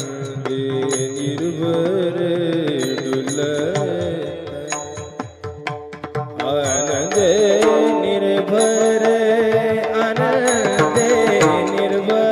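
Marathi devotional song: a solo voice singing a melodic line over drum and cymbal accompaniment. The music dips about halfway through, then comes back louder.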